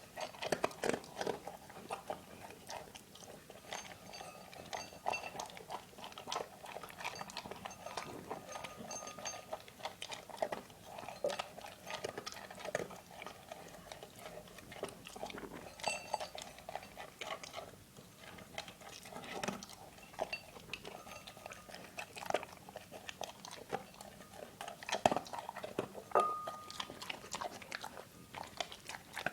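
A dog eating, chewing with many irregular crunches and clicks. Near the end there is one brief ringing tone.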